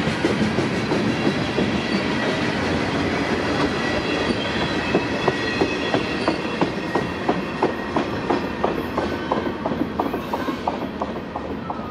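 Freight train of tank cars passing, its steel wheels clacking over the rail joints in a steady rhythm. The clacks grow quieter toward the end as the train moves away.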